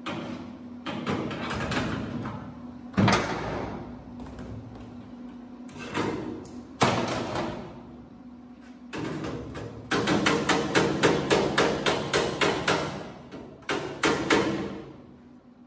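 Metal hammer blows on the sheet-metal bed of a squarebody Chevy pickup, each with a short ring. A few scattered strikes come first, then from about ten seconds in a quick run of roughly five blows a second that stops shortly before the end.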